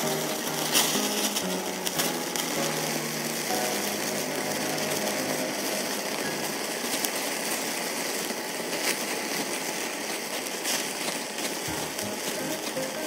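Pork belly fat sizzling and crackling as it is seared over open flames on a grill grate, with a few sharp pops, the loudest about a second in. Faint background music plays under it at the start and near the end.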